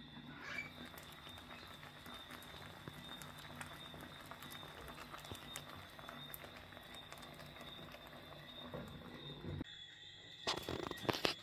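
Faint steady hiss and hum from a steaming pot, with a few light clicks as the aluminium pot lid is handled. Near the end come several sharp crinkles of aluminium foil as the foil-wrapped fish parcel is lifted out of the pot.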